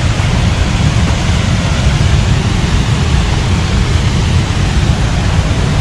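Steady, loud rush of a waterfall in heavy flow heard close up, a dense, even roar of falling water and spray.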